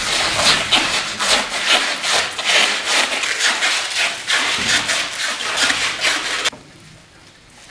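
Loud, dense, rapid scraping and rustling from performers working stage materials, cutting off suddenly about six and a half seconds in.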